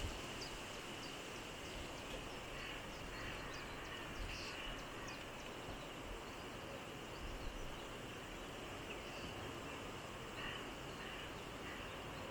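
Faint outdoor field ambience: a steady hiss with scattered short, high bird chirps.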